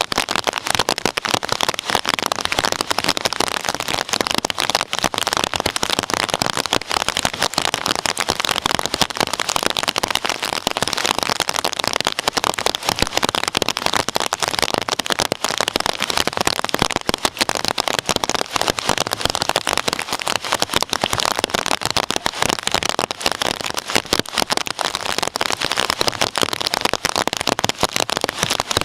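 Heavy rain falling steadily during a thunderstorm, a dense, even crackle of countless drops with no clear thunder rumble.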